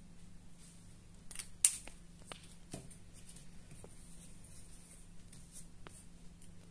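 Plastic highlighter cap snapped on with a sharp click about a second and a half in, among a few lighter ticks and taps, followed by soft handling of the cross-stitch fabric on the table.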